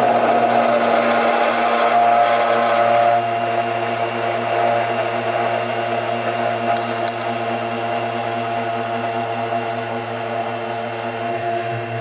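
Stick blender motor running steadily with a whine, its blade mixing liquid while xanthan gum is sprinkled into the rose-water phase to thicken it. The hissy mixing noise drops a little about three seconds in, then stays even.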